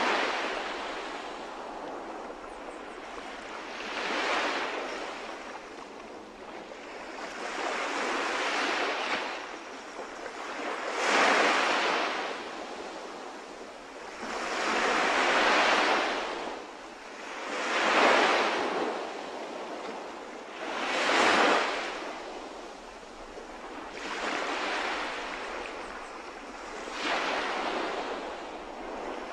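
Ocean waves washing on a shore, each swell rising and falling back about every three seconds.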